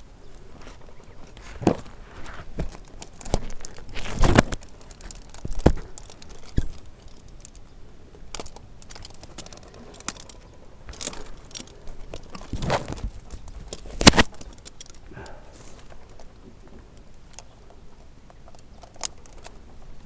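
A tree climber moving through a ginkgo's branches: metal climbing hardware clinking and branches knocking, with twigs rustling between the knocks. The loudest knocks come about four seconds in and near the middle.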